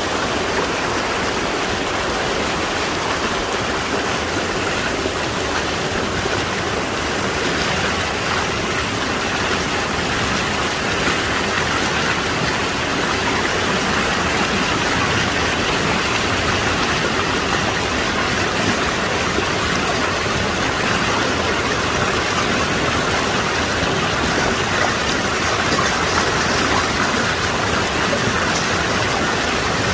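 Mountain valley stream rushing steadily, a constant, even wash of flowing water.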